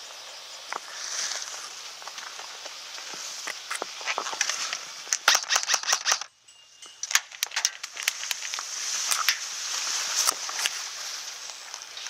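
Airsoft guns firing single shots, sharp cracks that come in a quick run of several about halfway through and then more scattered ones, over rustling grass and a steady high hiss. It drops almost to silence for under a second just after the quick run.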